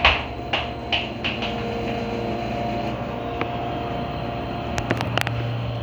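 Freight elevator running, a steady mechanical hum with a few held tones, with a series of clicks and rattles in the first second or so and another short cluster of clicks near the end.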